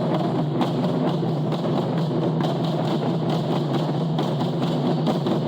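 Japanese taiko drums played in a fast, steady rhythm of many strikes.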